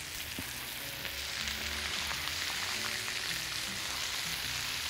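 Chicken thighs, chopped onion and ground spices sizzling in a hot, nearly dry stainless-steel frying pan: a steady frying hiss.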